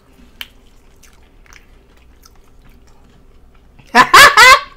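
Faint chewing and small mouth clicks, then about four seconds in a person's sudden, very loud vocal outburst in three quick pulses with a bending pitch.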